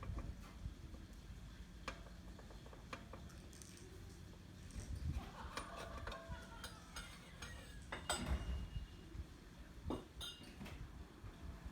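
Faint, scattered clinks and clicks of metal hand tools and parts being handled during a supercharger pulley swap, with a few short metallic rings between about five and ten seconds in.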